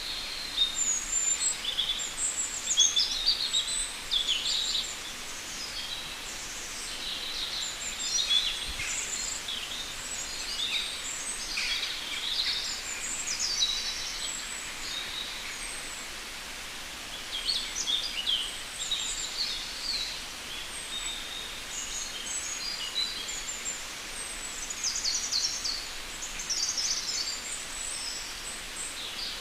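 Several birds singing and chirping in quick, high notes that come and go over a steady hiss, with a short lull about halfway through.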